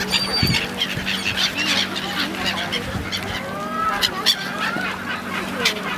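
A flock of waterbirds calling all at once, many overlapping honks and squawks, over a steady low hum.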